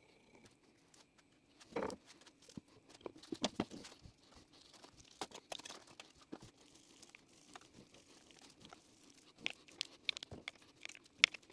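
Light handling noise as a bandsaw gearbox cover is sealed and fitted: scattered clicks, taps and rustling from gloved hands and small tools on the metal parts, with a few sharper knocks about two seconds in and near the end.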